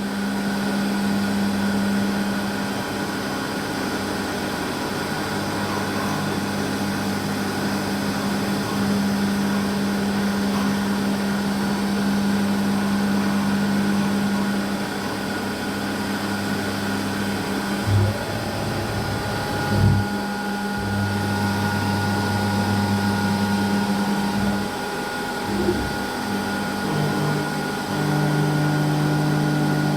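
Kunzmann WF7 CNC milling machine running, with a steady hum whose tones switch on and off and shift as the drives change. Two short knocks come around the middle, and near the end the hum drops to a lower pitch.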